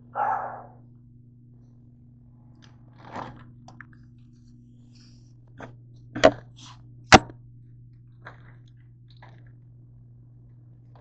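Handling noise as the camera and objects are moved about: a short rustle right at the start, then scattered knocks and clicks, the two sharpest about six and seven seconds in, over a steady low hum.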